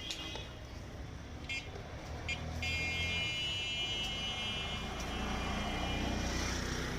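Road traffic with a vehicle horn: two short toots, then one long horn blast lasting about four seconds, over the low rumble of engines.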